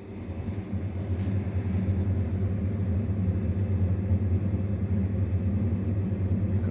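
A steady low hum that swells up over about the first second and then holds steady.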